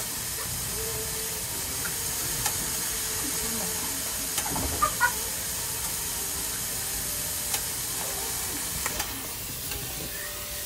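A steady hiss, with a few light clicks and taps around the middle and again near the end.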